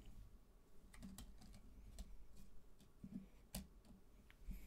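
Faint, scattered taps and clicks of tarot cards being handled and set down on a wooden table, about half a dozen small ticks over a quiet room, the sharpest about three and a half seconds in.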